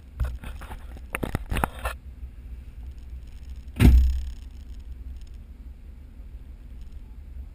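Low, steady rumble of an idling Jeep engine, with a run of sharp clicks and knocks in the first two seconds and one loud thump a little before the middle.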